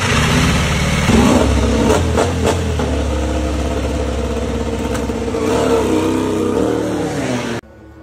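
Ducati Desmosedici MotoGP bike's V4 engine running loud with rev blips, the revs rising about a second in. The sound cuts off abruptly near the end.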